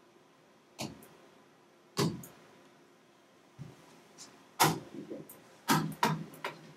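About seven light taps and knocks, unevenly spaced, the loudest about two seconds in and in the last two seconds, with faint room tone between them.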